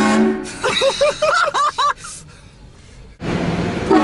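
A loud train-style air horn blasts briefly, followed by a person's string of short vocal cries. Near the end, the horn starts blaring again.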